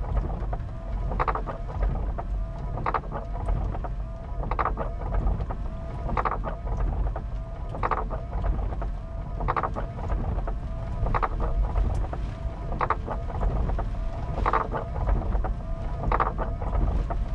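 Heavy thunderstorm rain and wind beating on a semi-truck cab, heard from inside as a steady rumble. Over it, a windshield wiper sweeps across the glass about every second and a half.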